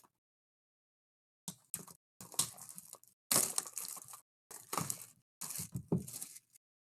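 Trading-card packaging being torn open and handled: a run of irregular crackling, crinkling tears of plastic wrapping, starting about a second and a half in.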